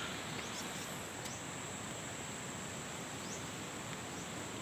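Tropical forest ambience: insects keep up a steady high-pitched trill, a few faint short bird chirps come through, and an even hiss of background noise sits underneath.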